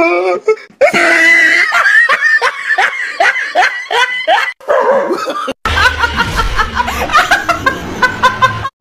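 A person laughing hard in rapid, repeated bursts. About halfway through the laughter breaks off briefly and starts again over a low hum.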